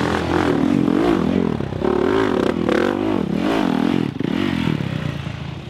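Dirt bike engine revving up and down as the rider works the throttle, its pitch rising and falling about twice a second, easing off near the end.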